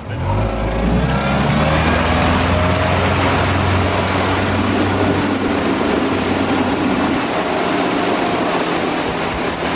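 Motorboat engine opening up at take-off, its pitch rising over the first few seconds, then running steadily at speed under a loud, steady rush of wind and water noise.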